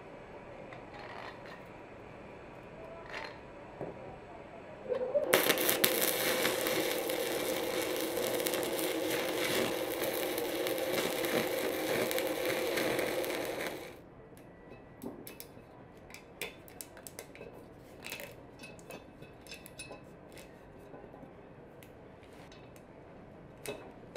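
Electric arc welding on a steel wheel hub: a steady, loud crackle of the arc that starts suddenly about five seconds in and cuts off about nine seconds later. Light clicks and taps of the metal being handled follow.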